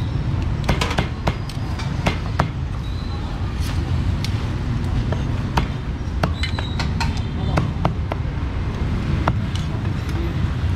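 Busy street-market ambience: a steady low rumble with background chatter, broken by frequent, irregular sharp knocks and clicks.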